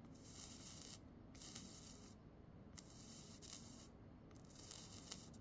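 Flux sizzling under a soldering iron tip on circuit-board joints: four faint hissing spells about a second long each, with a couple of sharp little pops.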